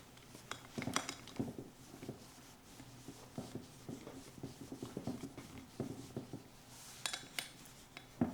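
Light metal clicks and clinks of a small hex key and hardware as an axle bolt is screwed into an off-ice skate wheel, with a few sharper clinks about a second in and near the end.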